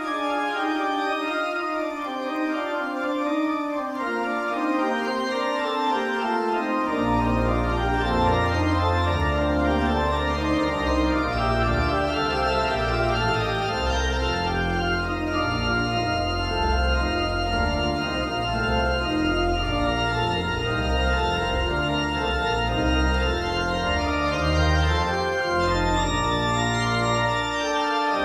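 Church organ playing a slow piece in several voices on its manuals. About seven seconds in, the pedal bass enters with deep sustained low notes that carry on under the chords.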